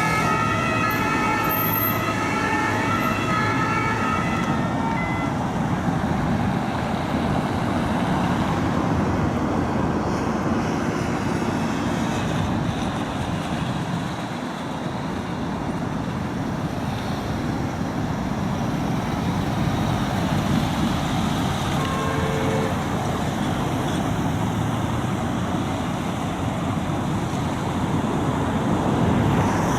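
A French two-tone emergency siren alternating between two pitches, fading out within the first few seconds, followed by steady street traffic noise.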